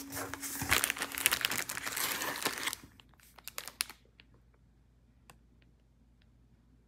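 Plastic food packaging and cardboard box flaps crinkling and rustling as packages are handled, dense for about three seconds, then only a few light ticks.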